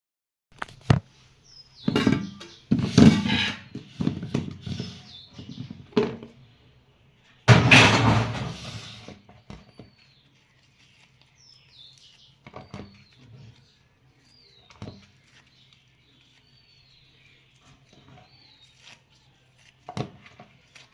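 Small birds chirping, short calls about every second or two in the second half, after a run of loud knocks and rustling noises in the first half.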